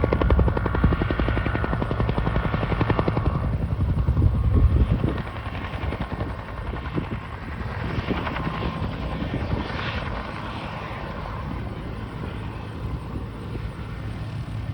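Helicopter main rotor beating in a fast, even chop with a heavy low rumble, then noticeably quieter from about five seconds in, as the helicopter moves away.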